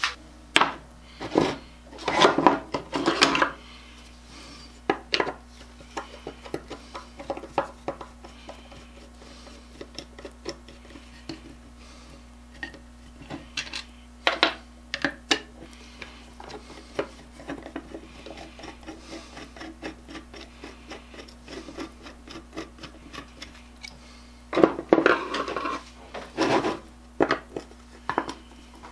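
Clinks, taps and scrapes of a wooden-bodied transitional hand plane and its metal parts being handled and reassembled with a screwdriver on a wooden workbench. The taps come in short clusters near the start, about halfway and near the end, with scattered light ticks in between.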